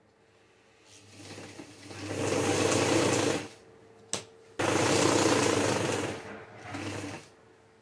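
Electric sewing machine stitching a gathered ruffle onto thin cotton, run in bursts. It builds up and runs for a couple of seconds, stops, and gives a single sharp click. It then runs again for about a second and a half, slowing, with a short last burst near the end.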